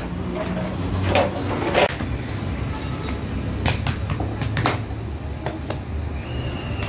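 Working food-shop noise: a steady low hum with about five sharp knocks and taps scattered through it, from handling paper, dough and metal on the counters.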